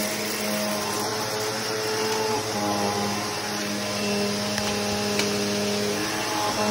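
Upright vacuum cleaner running steadily while pushed over carpet: a constant motor hum with a low steady tone and higher tones that shift slightly in pitch as it moves. There is a faint click about five seconds in.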